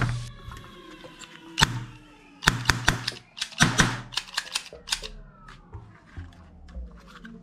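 Toy cap-gun revolver firing: a single sharp crack, then a rapid string of cracks, as caps go off. Near the end, light clicking as the revolver's cylinder is handled.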